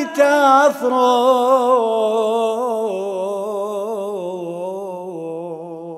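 Solo unaccompanied male voice singing a Syriac church hymn: one long melisma with wide vibrato that slowly falls in pitch and grows quieter toward the end.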